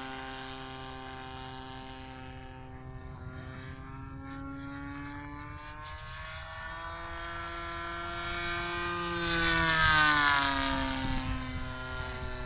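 Gasoline-converted Super Tigre 4500 two-stroke engine on an F3A aerobatic model airplane in flight, turning a 22x8 propeller with a steady drone. Its pitch drifts slightly lower at first, then climbs from about six seconds in. It grows loudest near ten seconds as the plane flies past, then drops in pitch.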